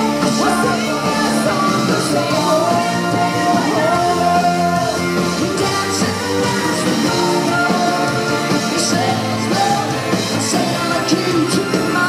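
Live rock band playing at full volume: a woman singing lead over electric bass, guitar and drums.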